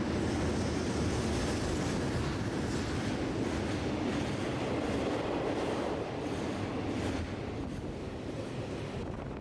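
Freight train wagons passing close by: a loud, steady rumble of wheels on rail with some clatter, easing off in steps over the last few seconds.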